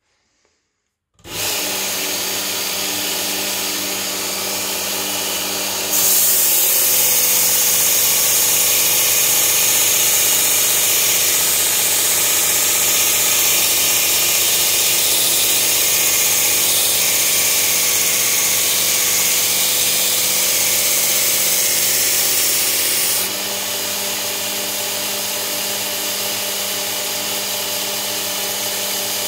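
Work Sharp Ken Onion belt sharpener with its blade grinding attachment switched on about a second in, the motor running with a steady hum. About six seconds in a steel knife blade is held to the coarse abrasive belt, adding a loud grinding hiss that lasts about seventeen seconds and then stops, leaving the motor running alone; this coarse-belt grinding is what raises the wire edge on the first side.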